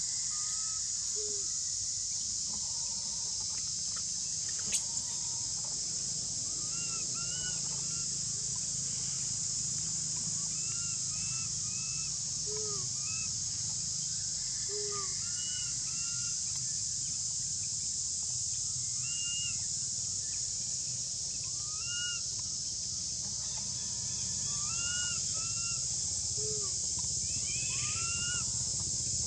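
Infant long-tailed macaque giving short, arched squeaky calls again and again, calling for its mother to nurse. Under them a steady high-pitched insect drone, and a single click about five seconds in.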